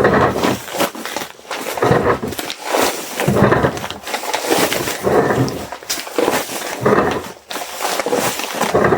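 Packing materials being handled: irregular rustling and crinkling in bursts about once a second.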